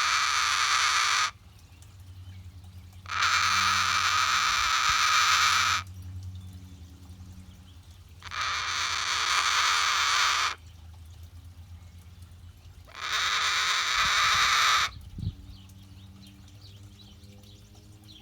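Cockatoo making a long, harsh, raspy hissing sound, about two seconds at a time, four times with pauses of about two seconds between, each stopping abruptly. It is a relaxed bird's vocalisation.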